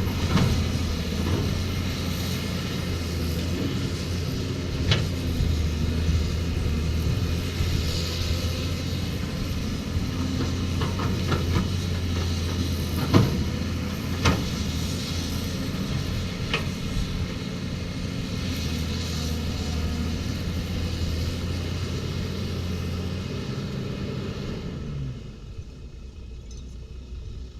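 Excavator's diesel engine running steadily, with a few sharp metallic knocks from the machine working. Near the end the engine sound drops away to a quieter rumble.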